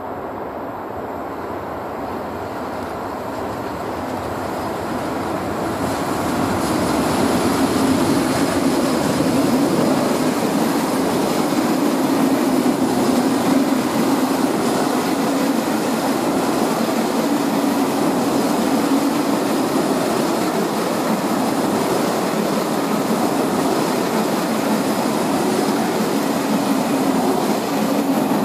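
Intercity passenger train hauled by an EP07 electric locomotive approaching and passing close by on the near track. The rolling rumble of its wheels on the rails grows louder for about the first seven seconds, then stays loud and steady as the coaches go past.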